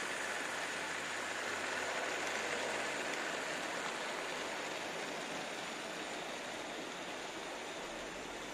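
Märklin H0 model train, a diesel shunting locomotive hauling car-transporter wagons, running along the track: a steady rolling whir of motor and wheels that slowly fades as the train moves past.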